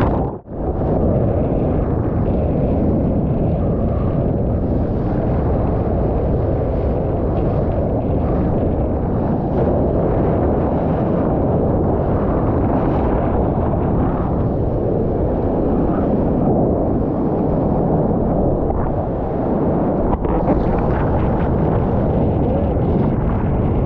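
Strong wind buffeting the microphone over storm surf, a dense steady noise that drops out briefly about half a second in.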